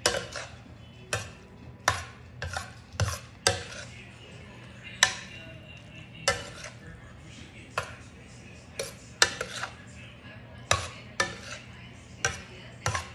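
Metal spoon stirring pasta shells and sausage in a stainless steel skillet, knocking and scraping against the pan with a sharp clink every second or so at an irregular pace.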